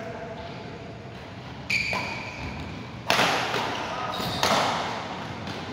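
Badminton rally: three sharp racket hits on the shuttlecock, roughly one and a half seconds apart, each ringing out in the echo of a large hall.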